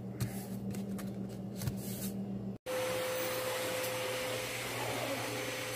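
Soft rustles and clicks of paper banknotes being wiped over a low hum, then after an abrupt cut a vacuum cleaner motor running steadily with a constant whine.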